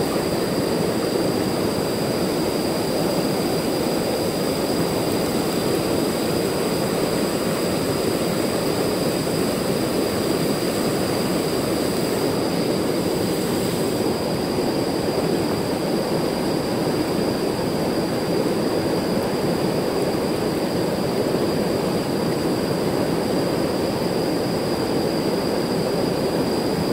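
Fast-flowing river water rushing steadily over and around rocks.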